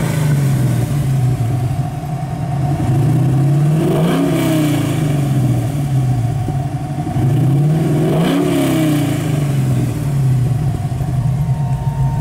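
Camaro's LS3 V8 with a Z06 camshaft heard at the exhaust, revved three times about four seconds apart, the note climbing and then falling back each time.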